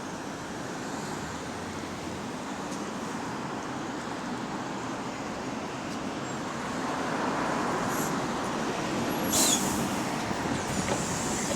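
Single-deck bus heard from inside: engine and running noise that grow louder about seven seconds in, with a short sharp hiss of air from the brakes about nine seconds in.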